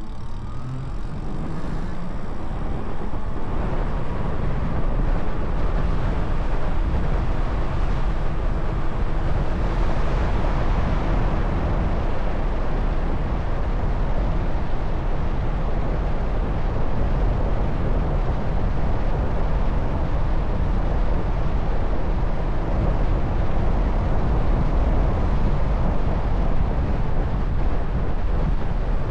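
Wind buffeting the Insta360 X4's built-in microphone, fitted with wind muffs, while riding an e-bike at speed: a steady, heavy rumble that builds over the first few seconds as the bike speeds up, then holds. A faint whine rises in pitch near the start.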